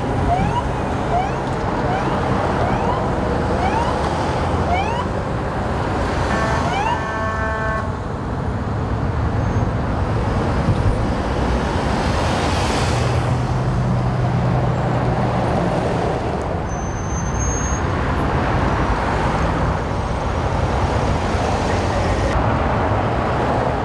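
Ambulance siren sounding in short rising sweeps, a bit faster than one a second, for the first few seconds. A brief horn blast about seven seconds in, then the steady noise of cars and trucks passing on the freeway.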